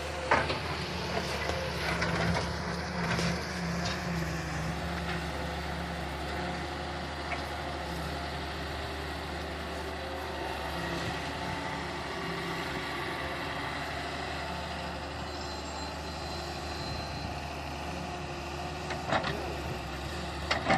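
Wheel excavator's diesel engine running steadily, with a few sharp knocks about half a second in and twice more near the end.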